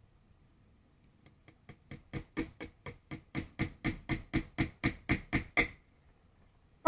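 Hammer tapping a 3-inch nail into a wooden board to start it: a run of light, quick taps, about five a second, that begins about a second and a half in, grows louder, then stops.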